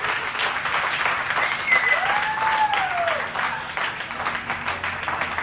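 A room full of people clapping and cheering, with a drawn-out rising-and-falling cheer about two seconds in; the clapping thins a little toward the end.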